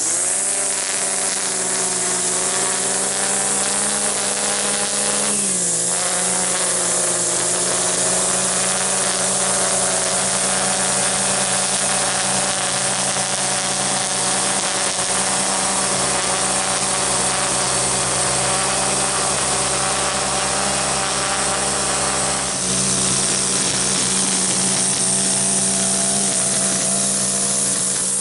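Gas string trimmer (weedeater) engine running steadily at high speed while edging grass along a concrete sidewalk. Its pitch dips briefly and recovers about five seconds in.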